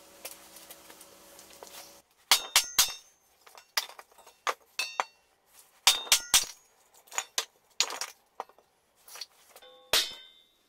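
Hammer blows driving a log down onto the blade of a homemade kindling splitter built from an old car brake disc. About a dozen sharp knocks start about two seconds in, several followed by a short metallic ring, and the loudest comes near the end.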